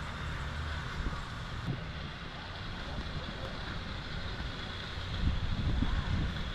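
Outdoor background noise: a steady hiss with low rumbling that grows stronger and gustier near the end.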